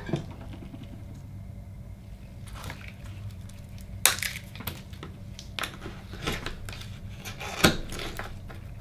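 Akoya oyster being pried open with a shucking knife: the metal blade scrapes and clicks against the shell, with two sharp loud clicks, one about four seconds in and one near the end. A steady low hum runs underneath.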